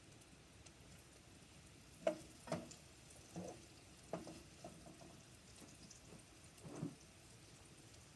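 Cooking spoon stirring in a pot on the stove, knocking and scraping against the pot about six times with short ringing clacks, the first, about two seconds in, the loudest.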